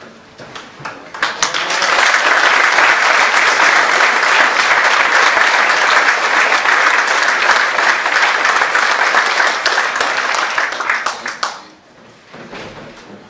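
Audience applauding: the clapping swells about a second in, holds steady, and dies away near the end.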